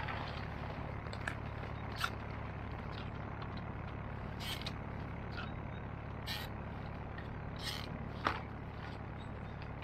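Scattered crackles and rustles of dry twigs, brush and a plastic sack as litter is picked up in undergrowth, about seven sharp ones spread through, over a steady low background rumble.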